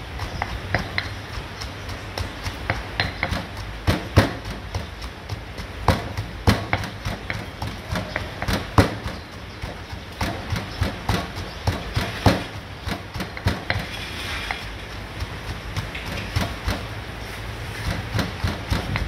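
Stone pestle pounding garlic, coriander root and white peppercorns into a paste in a stone mortar: a run of irregular knocks, about one or two a second.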